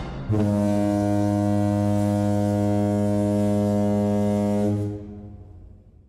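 A ship's horn sounding one long, steady, low blast of about four and a half seconds, then dying away.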